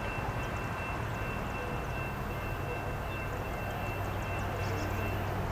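Diesel locomotives of an approaching CSX freight train heard from a distance as a steady low rumble and hum that grows a little near the end. Faint high chirps come and go over it.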